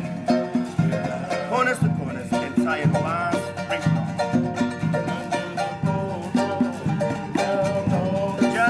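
Live Cook Islands music: a strummed ukulele over hand drums keeping a steady beat.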